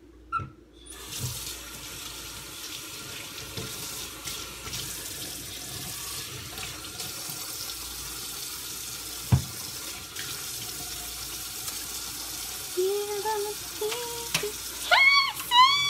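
Kitchen sink tap running for hand washing: a steady rush of water, with one sharp knock about nine seconds in and a voice over the water near the end.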